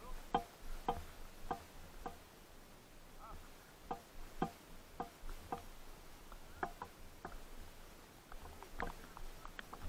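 Light clicks and knocks at uneven intervals, about one or two a second, from a helmet-mounted camera jostling in its mount as the wearer moves.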